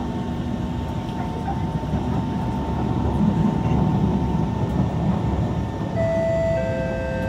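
Kawasaki C151 metro train running at speed, heard from inside the carriage: a steady wheel-on-rail rumble with a faint electric whine. About six seconds in, a new set of electric traction tones comes in and steps down in pitch.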